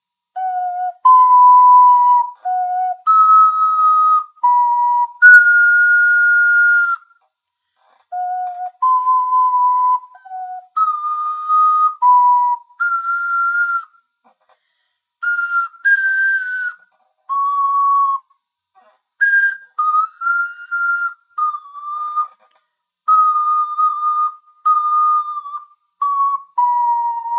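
Six-hole Songbird ocarina (Legend of Zelda Hylian Shield model) playing a slow melody of clear single notes, with short breaks between phrases.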